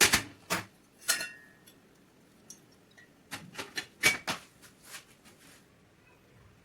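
Small metal parts clinking and clacking as they are handled. A sharp clack comes at the start, more about half a second and a second in, then a run of lighter clicks with a louder clack about four seconds in.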